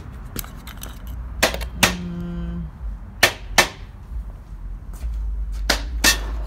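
Sharp knocks of greenhouse-kit frame parts being handled and set down on a concrete patio, coming in pairs: two about a second and a half in, two more about three seconds in, and two near the end.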